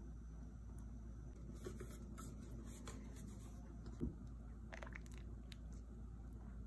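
Ladle moving through thick chicken corn soup in an aluminium pot: faint scrapes and soft sticky clicks over a steady low hum, with one dull knock about four seconds in.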